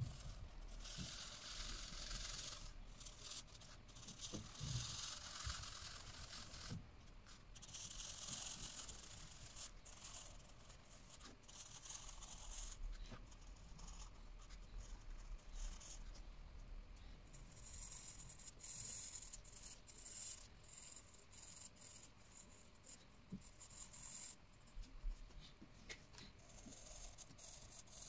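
Felt-tip marker scratching across paper as an area is coloured in: a faint, dry hiss that comes in stretches of a second or two with short pauses between.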